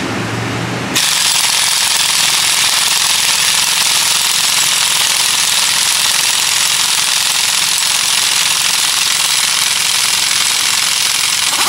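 Pneumatic impact wrench hammering steadily for about ten seconds, starting about a second in and stopping near the end, driving a bearing puller to press the bearing off a differential pinion gear.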